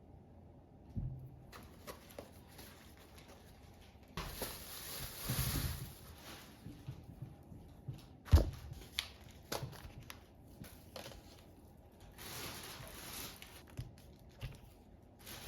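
Household handling sounds: rustling and crinkling in bursts, with a single sharp knock about eight seconds in, the loudest moment.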